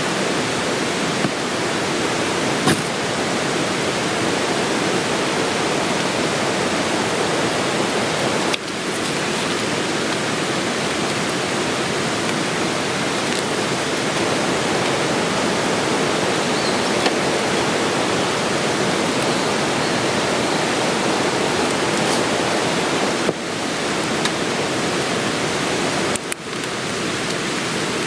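Steady rushing of a mountain stream running close by: a full, even wash of water noise, with a few faint ticks and brief dips in level.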